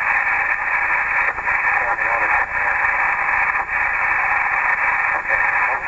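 Received lower-sideband voice transmission on the Icom IC-7000's speaker: a loud, steady buzzing noise over a faint, distorted voice. The operator takes it for a bad ground loop, with the transmit audio set too high, at the other station.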